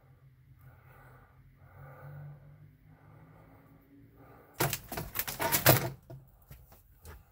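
Metal rattling and clattering as metal pieces are handled: a loud burst of dense clicks and rattles a little after halfway, lasting about a second and a half, over a faint steady hum.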